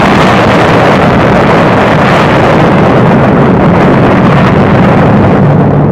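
A loud explosion: a sudden blast that holds as a steady roar of noise for about six seconds, then fades near the end.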